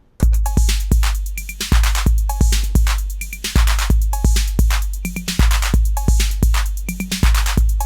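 Acidlab Miami, a TR-808 clone drum machine, playing a looping pattern that starts just after the beginning: long, deep bass drum booms under bright hi-hat hits, with short pitched high tom notes added on three steps near the end of each bar.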